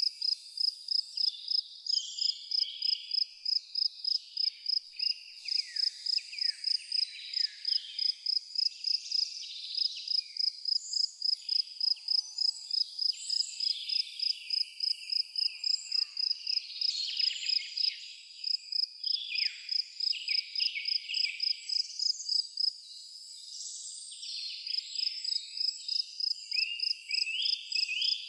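A cricket chirping steadily at about three chirps a second, with a short pause about 23 seconds in. Several birds sing and call over it with varied high chirps and falling notes.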